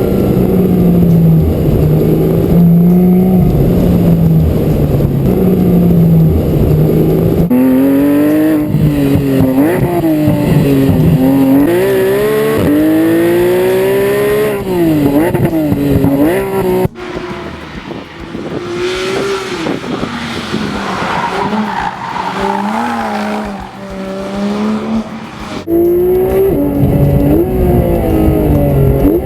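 Porsche 991 GT3's naturally aspirated 3.8-litre flat-six at full throttle on track, its pitch climbing and dropping again and again through hard revs and gear changes. It is quieter for several seconds about two-thirds of the way through.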